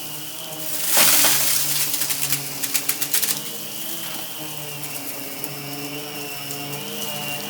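Centralux central vacuum running through an EBK360 electric power nozzle, a steady motor whine, as it sucks up crunchy debris that clicks and rattles through the nozzle and hose. A loud rush of air and debris comes about a second in, with a burst of rattling clicks a little later.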